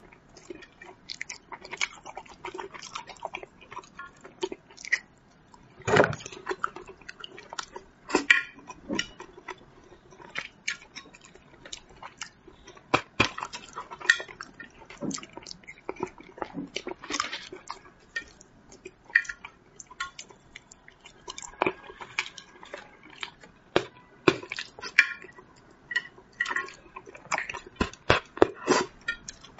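Close-up eating sounds from someone eating braised carp: irregular wet chewing and lip smacks, with sharp clicks of chopsticks against a glass baking dish.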